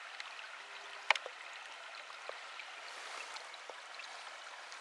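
Small creek running steadily, an even soft rush of water. A single sharp click stands out about a second in.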